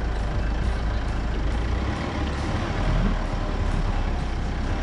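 Motor vehicle running: a steady low rumble with a few faint knocks.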